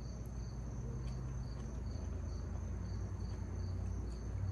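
Insects chirping: a steady high trill with a rhythmic chirp repeating about two to three times a second, over a steady low hum.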